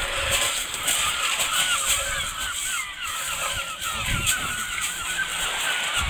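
Gulls calling over and over, a busy chatter of short wavering cries, with shingle crunching underfoot and a dull thump about four seconds in.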